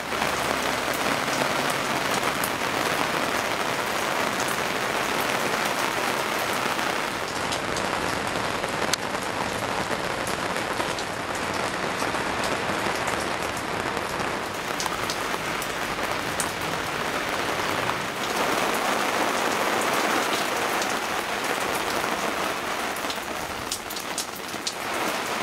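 Steady rain falling on a tiled balcony and its surroundings: a dense, even hiss with many sharp ticks from drops landing close by.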